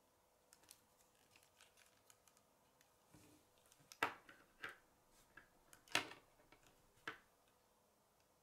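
Plastic K'nex rods and connectors clicking and clacking as a hand-built K'nex scissors linkage is worked open and closed: scattered light ticks, then a few sharper clacks in the second half.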